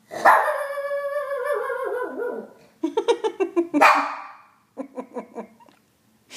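Shih Tzu howling: one long howl that slides down in pitch over about two and a half seconds, then a quick run of short yips, a louder howling yelp near four seconds, and a few more short yips.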